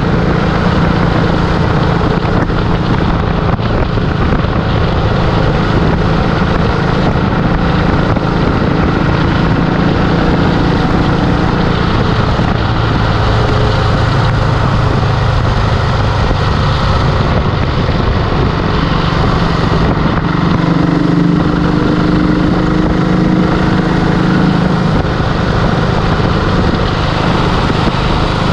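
A 1951 Vincent Comet's 500 cc single-cylinder four-stroke engine running at road speed. The exhaust note is steady, its pitch shifting a few times, with wind noise on the microphone.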